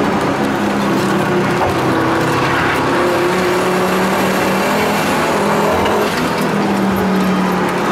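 Tuned Volvo 850 T5-R's turbocharged five-cylinder engine running steadily, heard from inside the cabin, its pitch shifting slightly, with a brief dip in loudness about six seconds in.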